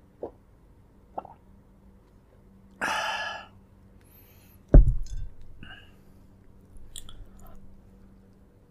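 Mukbang eating sounds from braised pork leg: a few small clicks, a half-second wet, noisy bite about three seconds in, and a heavy thump, the loudest sound, just before five seconds, followed by softer chewing noises.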